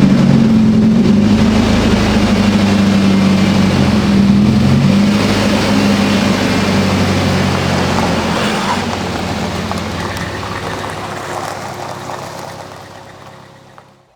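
Car engine running with a steady note that shifts about nine seconds in, then fades out gradually; most likely the Nissan 240SX (S13) itself.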